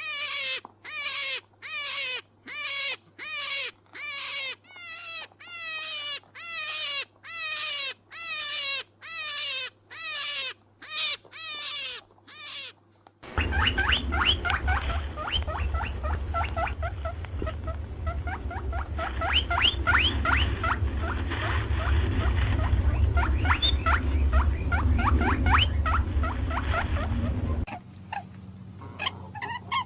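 Animal calls in two sections. A regular series of short pitched calls falling in pitch, about one and a half per second, stops about twelve seconds in. Then comes a stretch of rapid high squeaks over a loud low rumble, like wind or handling noise, which ends shortly before the close.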